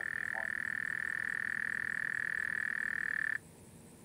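A frog's long, steady trill on one high pitch that stops abruptly about three and a half seconds in.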